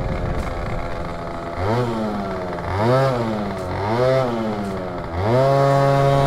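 Two-stroke 50 cc engine of a tuned Yamaha Aerox scooter with a Malossi kit, revved in three short blips that each rise and fall in pitch. About five seconds in, the revs climb and then hold at a steady high pitch.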